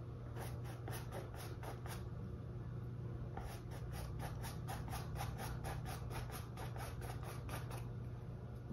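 Bristles of a small paintbrush flicking across a canvas in short strokes, laying in acrylic fur. The strokes come a few at a time at first, then quicken to a steady run of about four a second from a little over a third of the way in.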